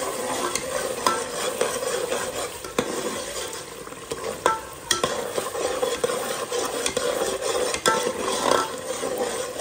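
Steel ladle stirring and scraping a thick chicken tikka gravy in a stainless steel pot, the gravy sizzling in its oil as the water from the added curd cooks off. Now and then the ladle clicks against the pot.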